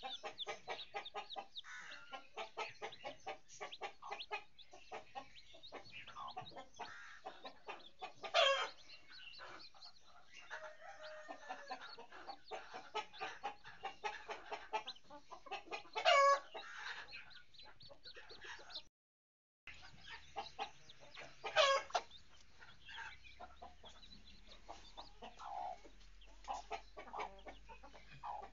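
A brood of newly hatched chicks peeping continuously in quick, high calls, with the mother hen clucking among them and letting out three loud drawn-out calls spread through the stretch. The sound cuts out briefly about two-thirds of the way through.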